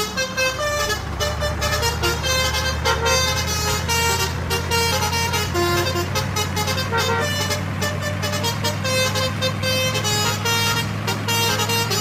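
Vehicle engine sound effect running steadily as a low drone, with short tooting tones over it.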